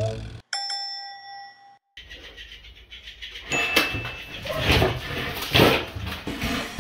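A bell-like ding-dong chime sound effect rings once and fades. After it, a golden retriever's paws scuff and thud on a concrete floor as it goes after a toy fish, with two louder scuffs about two-thirds of the way through.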